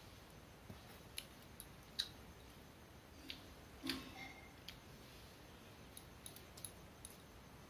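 Faint, scattered clicks and smacks of eating rice by hand from a steel plate: chewing with a full mouth and fingers mixing rice against the metal plate. The sharpest click comes about two seconds in.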